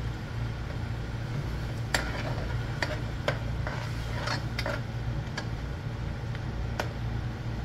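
Metal spoon scraping and clinking against the side and bottom of a large metal pot while stirring a thick curry spice paste, with several sharp knocks at irregular moments. A steady low hum runs underneath.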